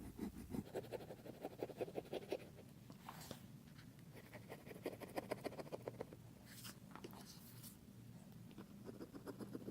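Metal scraping tool rasping old adhesive off an iPad Air's frame: faint scratching in several short runs of quick strokes.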